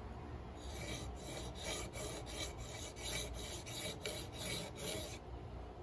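Steel chisel blade rubbed back and forth on a DMT DuoSharp diamond sharpening stone: a run of quick, even scraping strokes, several a second, as the edge is honed. The strokes start about half a second in and stop about a second before the end.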